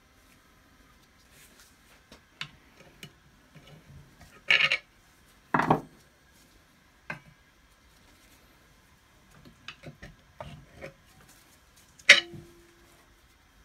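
Metal parts and hand tools handled and set down on a wooden workbench during the strip-down of an old bench grinder: scattered clicks and clunks, two louder knocks about a second apart midway, and a sharp metallic clink with a short ring near the end.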